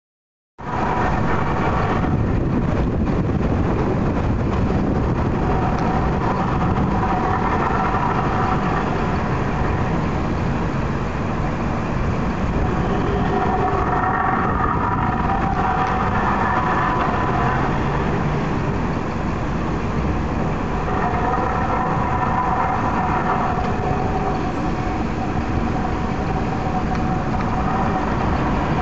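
An unexplained "strange sound in the sky": a loud, steady rumble with a metallic, groaning drone of several tones that swells up three times and fades back.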